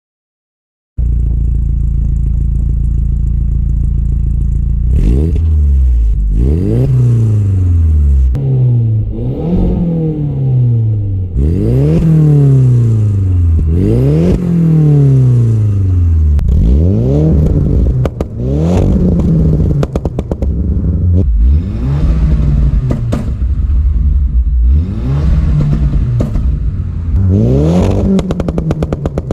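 Volkswagen-Audi 1.8T turbocharged four-cylinder engine starting to idle about a second in, then revved in about ten quick blips, each rising and falling back. Pops and bangs crackle from the exhaust as the revs drop after each blip.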